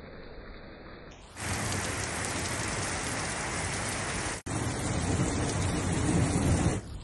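Heavy rain pouring down, a loud steady hiss that starts abruptly about a second in, breaks off for an instant midway, and then carries a deeper rumble. Before and after it, a fainter, duller rain hiss.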